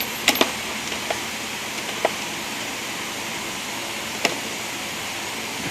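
A few short, irregular clicks and clinks of impact sockets being handled and turned around in a toolbox, over a steady background hiss.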